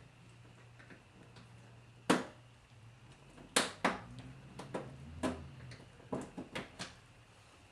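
Sharp clicks and knocks of tools and car parts being handled while a car's front bumper is taken off: one loud knock about two seconds in, then a cluster of about nine more, over a steady low hum.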